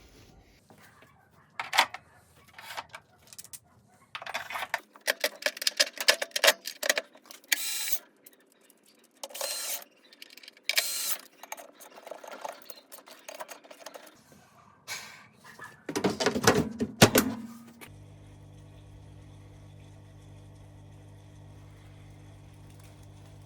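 Irregular clicking and clattering of hard parts and tools being handled, loudest just before a steady low hum takes over about 18 seconds in.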